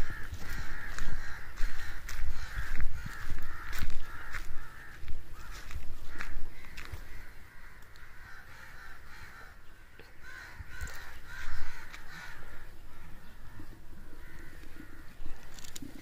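Crows cawing over and over, in a run through the first five seconds and again about eleven seconds in, with footsteps on a dirt path.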